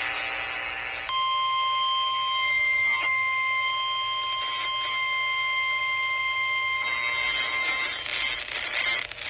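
NOAA Weather Radio warning alarm tone, a single steady pitch near 1050 Hz heard over a radio receiver, which signals that a warning is about to be broadcast. It starts about a second in, holds for roughly six seconds, then cuts off and gives way to a rougher noisy hiss.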